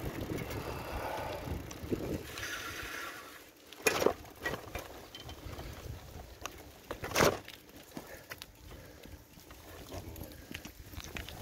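Bicycle being ridden over paving slabs: a steady noise of tyres and rattling, with two sharp knocks about four and seven seconds in.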